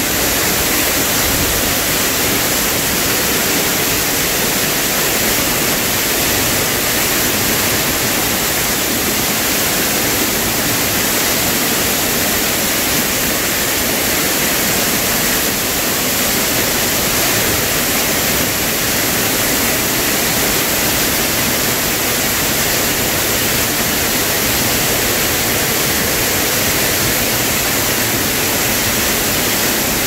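Artificial waterfall pouring into its pool at close range: loud, steady rushing and splashing of falling water.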